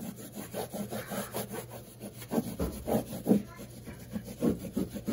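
A cloth disinfectant wipe rubbed quickly back and forth over a light switch plate and textured wall, a steady run of short scrubbing strokes.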